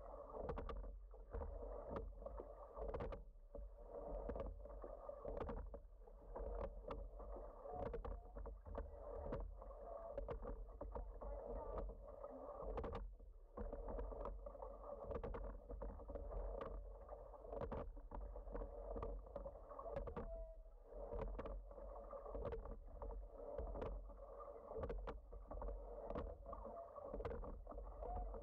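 Water rushing and splashing along the hull of a racing eight under way, rising and falling in level, with many sharp clicks from the oars and rigging. The sound is somewhat muffled, with little in the high end.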